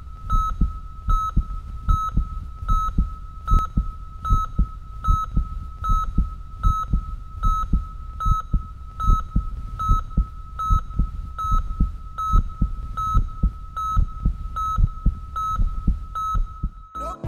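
Heartbeat sound with a medical monitor's electronic beep repeating about every 0.8 s, over rapid low thumping pulses like a fetal heartbeat heard on ultrasound.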